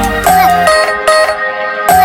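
Electronic background music: a repeating synth melody over a bass line and beat.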